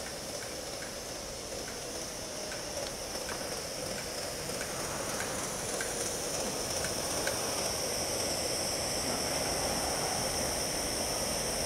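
Aster gauge 1 live-steam C12 tank locomotive model running on its track: a steady steam hiss that grows louder as the engine comes closer, with faint light clicks about twice a second.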